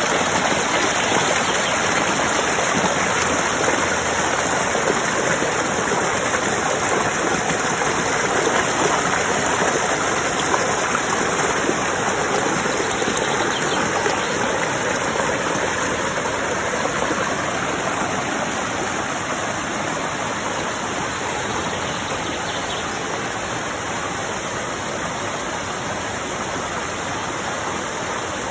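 Steady rush of running water, like a stream or small waterfall, easing off slightly toward the end.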